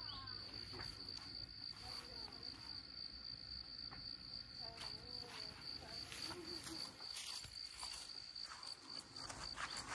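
An insect trilling steadily in a quiet, high, rapidly pulsing tone, with a few faint chirping calls lower down.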